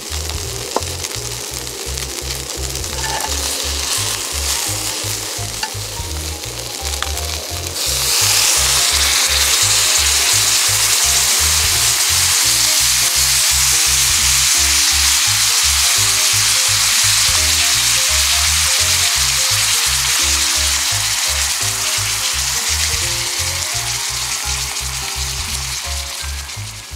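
Meatballs sizzling in a hot cast iron skillet. About eight seconds in the sizzling suddenly gets much louder as stew liquid is poured into the pan, then slowly eases. Background music with a steady bass beat plays throughout.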